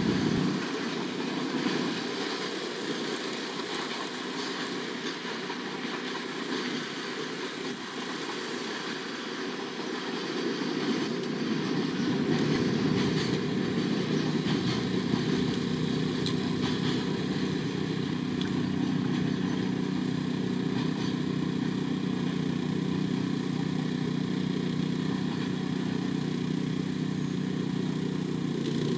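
Freight train running past, a steady low rumble and hum that grows louder about ten seconds in, with a steady low drone joining it in the second half.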